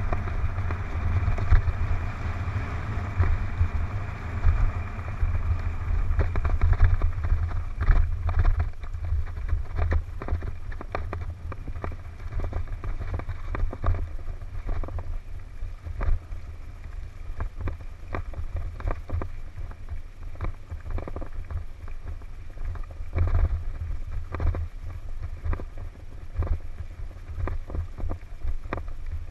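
Mountain bike descending a rough dirt trail at speed: wind buffets the camera microphone with a constant low rumble, and frequent knocks and rattles come from the bike over bumps and roots.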